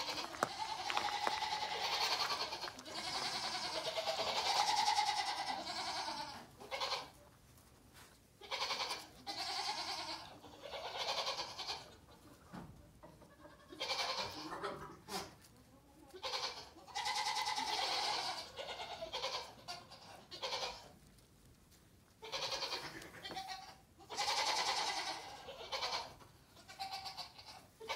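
Repeated animal cries: long, wavering calls of one to several seconds each, coming one after another with short pauses between them.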